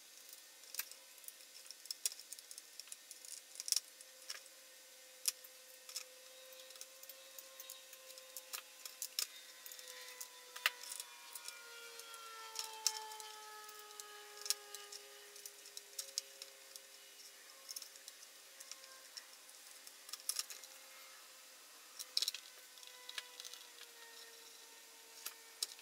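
Faint, irregular small clicks and taps of a circuit board, small screws and a precision screwdriver being handled and fitted. A faint background tone runs underneath and slowly bends down in pitch around the middle.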